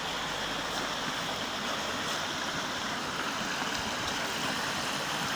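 Small waterfall on a stream, water splashing and rushing steadily.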